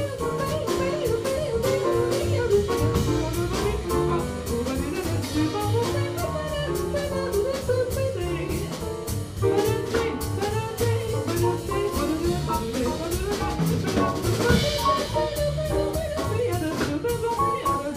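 Live jazz band playing: piano, upright double bass and drum kit keeping a steady beat, with a melody line on top.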